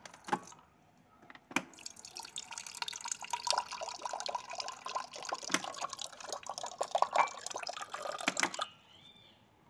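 A thin stream of water from a Consul water purifier's spout pouring and splashing into a glass jar, then stopping about a second before the end.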